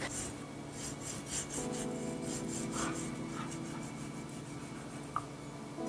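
Long serrated knife sawing horizontally through a vanilla sponge cake layer: quick back-and-forth rasping strokes, about three or four a second.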